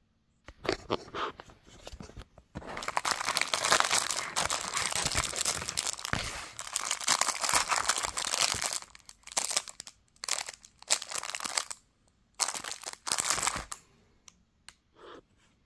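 Clear plastic packaging bag crinkling and tearing as it is ripped open by hand: short rustles at first, a long unbroken stretch of crackling, then a few shorter bursts that stop about a second before the end.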